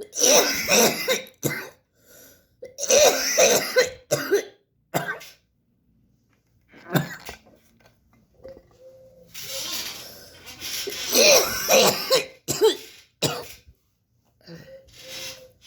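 A person coughing hard in several fits with short pauses between them, clearing their throat and hawking up phlegm.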